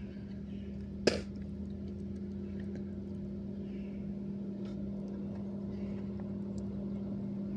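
A steady low hum, with one sharp click about a second in and faint scattered ticks.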